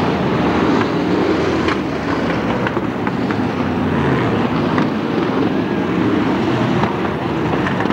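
Several stock car engines running hard as the cars race round the track, a steady mixed engine noise with a few short knocks.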